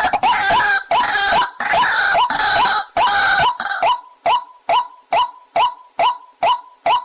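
Waterhen calling: a harsh, dense run of hooked, overlapping notes for the first half, which about four seconds in settles into a steady series of single short notes, about two a second.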